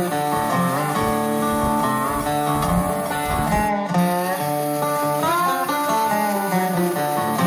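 Background music led by plucked guitar, with some notes bending in pitch.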